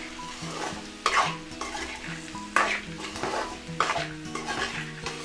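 Metal spatula scraping and stirring a frying mix of raw banana pieces and soaked moong dal in an aluminium kadai, a scrape about once a second, with the oil sizzling under it.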